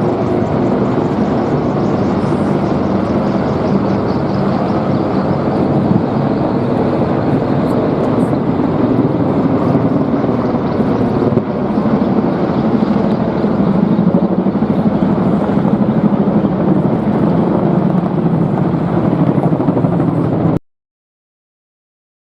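Military helicopters flying over, a steady heavy drone of rotors and turbine engines that cuts off suddenly near the end, followed by a couple of seconds of silence.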